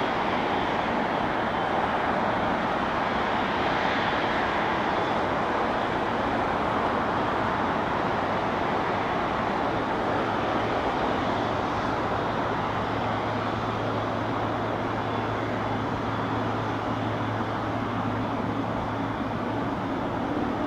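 Boeing 777's jet engines running steadily at taxi power, a constant rushing noise, with a low steady hum joining in about halfway through.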